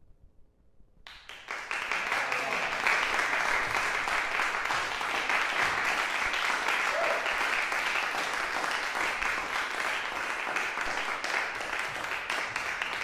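Audience applauding, starting suddenly about a second in after a brief hush and keeping up steadily.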